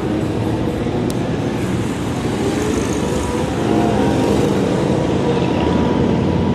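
Motorcycle engines running steadily in a slow-moving street column, mixed with general road-traffic noise.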